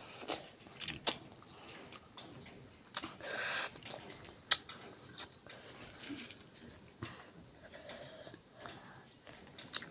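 A child eating spicy instant ramen noodles from a steel plate: slurping and chewing, with a longer slurp about three seconds in. Sharp clicks of the fork and spoon against the plate come at irregular moments.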